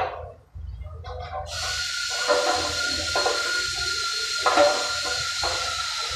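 A steady, loud hiss that starts about a second and a half in and runs for about five seconds, with a thin whistling tone through it. Several knocks and clatters sound underneath.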